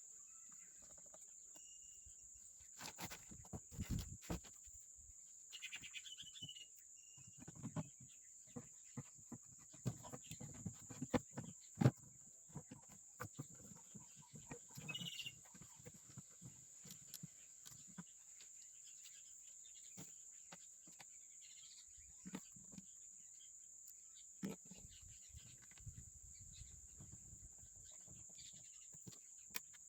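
Steady high chirring of crickets in the background, with scattered clicks and knocks throughout; the sharpest knock comes about twelve seconds in.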